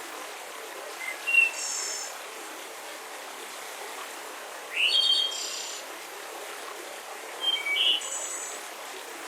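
Forest birds chirping in three short high phrases a few seconds apart, the middle one starting with a rising note, over the steady hiss of a gentle breeze.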